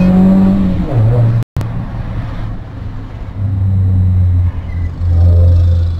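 Proton Saga FLX engine droning steadily while driving, heard from inside the cabin. The sound cuts out completely for a moment about one and a half seconds in, and the drone dips briefly twice near the end.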